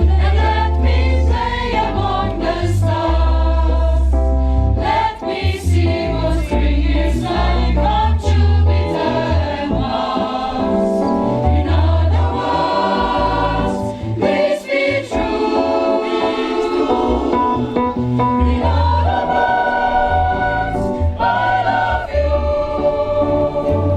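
Music with layered singing voices over a deep bass line.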